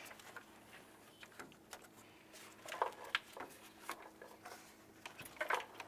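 Light plastic clicks and scraping as the radiator is worked free of the A/C condenser's upper lock clips, with a few sharper clicks about three seconds in and near the end.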